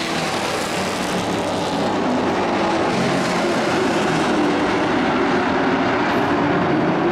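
Engines of several dirt-track racing trucks running at speed around the oval, blending into a steady mixed engine noise.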